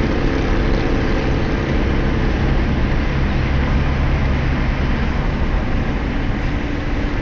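Steady road noise inside a moving car: a continuous low engine drone mixed with tyre and wind rush.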